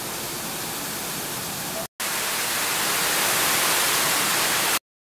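Wall fountain water splashing steadily as thin streams fall from wall spouts and pour over the rim of a stone basin. It drops out for an instant about two seconds in, resumes louder, and cuts off abruptly near the end.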